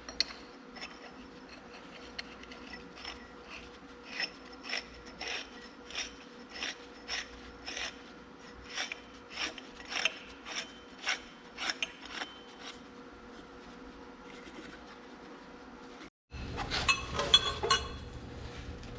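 Hand work on steel axle parts: a run of short rubbing, scraping strokes, about two a second, followed near the end by a louder clatter of metal parts.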